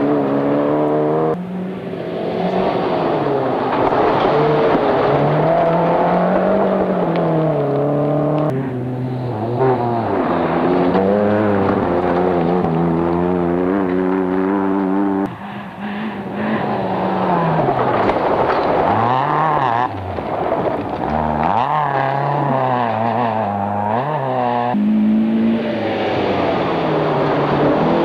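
Rally car engines revving hard on a gravel stage, the pitch rising and falling through throttle and gear changes. It comes as a run of short clips of different cars, a few seconds each, with abrupt changes between them.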